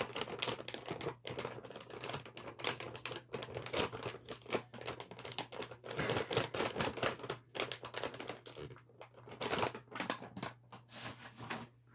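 A plastic bag of misutgaru powder crinkling as it is handled and its top rolled shut, in dense crackles with a few brief pauses.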